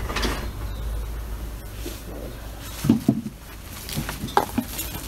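Beekeeper's bellows smoker giving a puff right at the start, blowing smoke onto a swarm of Africanized honey bees, then a few short soft handling sounds.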